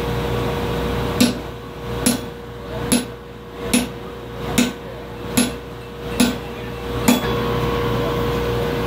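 Eight evenly spaced hammer blows, one just under every second, on a railroad spike being forged into a cross, over a steady hum.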